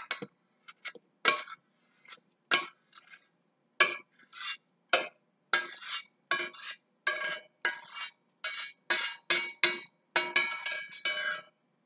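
A metal spoon scraping and knocking inside a stainless steel saucepan as warm blueberries are scraped out into a blender cup: a run of irregular clinks with a metallic ring, sparse at first and coming faster from about four seconds in.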